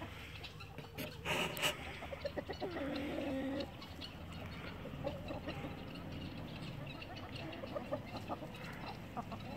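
Flock of chickens clucking, with many short, quick clucks throughout. There is a louder, sharp squawk about a second and a half in, and a longer drawn-out call around three seconds in.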